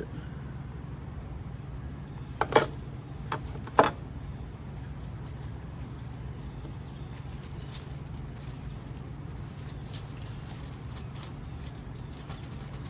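Steady high-pitched chorus of singing insects, with a few sharp knocks between about two and four seconds in.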